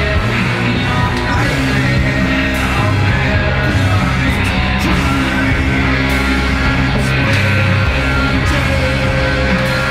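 Loud heavy rock or metal music with distorted guitar and singing.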